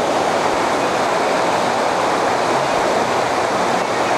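Fast-flowing river water rushing steadily over stones, a loud, even wash with no breaks.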